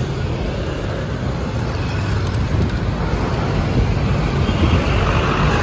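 Steady road traffic: a continuous rumble of passing cars, getting slightly louder near the end.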